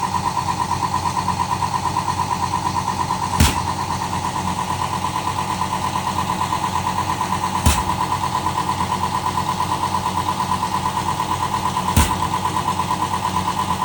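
Rebuilt Sandpiper air-operated diaphragm pump running on 7 bar compressed air under test, with a steady rapid pulsing and a sharp knock about every four seconds, three times.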